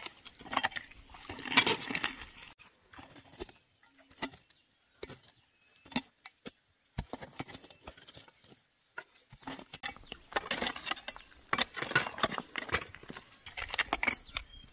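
Irregular scraping and short knocks of hand work on the pond steps, in two busy spells with a quieter gap of scattered clicks between them.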